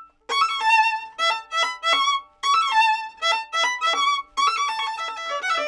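Violin bowed in a quick passage of short phrases with vibrato, then a flowing run of notes near the end. The bow hair is freshly and heavily rosined with new rosin, and the tone is clean with no rasp.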